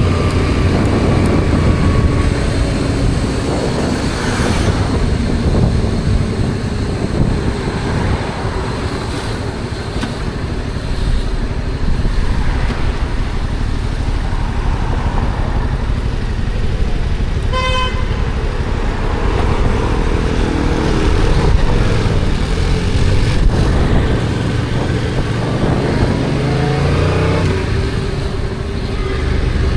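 Stock Yamaha XSR700's 689 cc parallel-twin engine running through city traffic, rising in pitch as it accelerates near the end. A short horn toot sounds a little past halfway.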